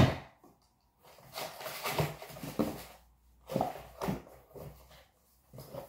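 Cardboard box and its packaging being handled: a sharp knock at the start, then short bursts of rustling and scraping.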